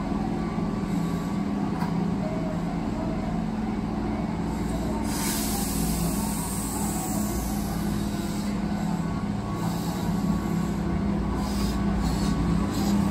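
Keihan 2200 series electric train standing at a station platform, its equipment giving a steady low hum. A burst of air hiss comes about five seconds in, and a few knocks follow near the end.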